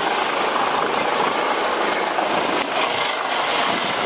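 Steady rush of wind and water as an ocean racing yacht sails fast through rough sea, with wind buffeting the microphone.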